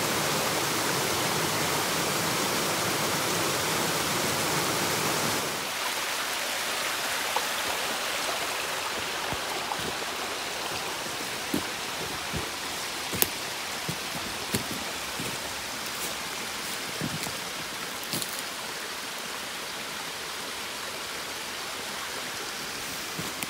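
A mountain stream rushing over rocks and a small waterfall, a steady full rush that cuts off abruptly about five seconds in. A fainter steady rush follows, with scattered crackles and snaps of dry bamboo leaves and twigs underfoot.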